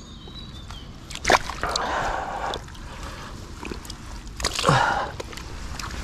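Water splashing and sloshing as a landed ghost carp thrashes in shallow water: a sharp splash about a second in, followed by a second of sloshing, and another splash burst about four and a half seconds in.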